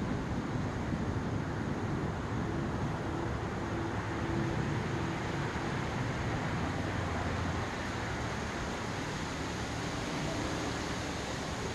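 Low rolling rumble of distant thunder over a steady hiss of rain; the rumble eases slightly about eight seconds in.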